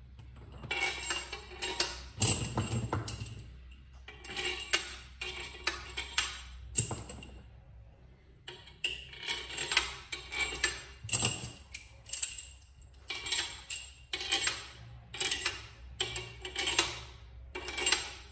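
Hand ratchet wrench clicking in repeated short bursts, one back-swing after another, as the cylinder head bolts of a Chrysler Slant Six are run down. The strokes come in several runs, with brief pauses about four and eight seconds in.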